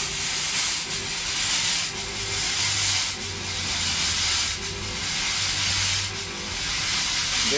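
Fog machine firing, blowing out fog with a steady loud hiss that swells and dips about once a second. A low hum joins in for a few seconds in the middle.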